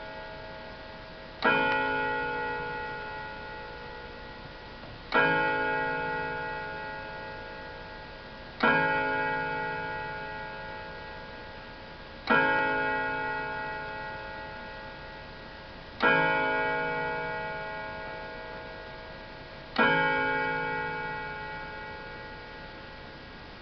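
Sorel chiming table clock striking slowly: six single strikes about three and a half seconds apart, each ringing with several tones and fading away before the next.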